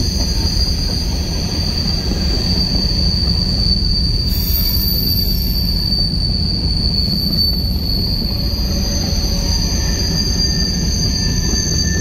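CSX freight train rolling past, its wheels giving a steady high-pitched squeal over a continuous low rumble of the passing cars.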